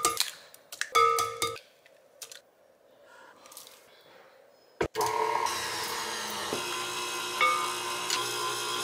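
Tilt-head stand mixer with a wire whisk beating butter, sugar and egg in a glass bowl: the motor runs in two short bursts and stops. About five seconds in there is a sharp click, and then it runs steadily again.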